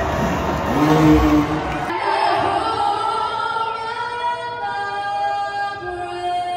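A singer performs the closing lines of the national anthem in long, held, sliding notes. It is preceded by about two seconds of music.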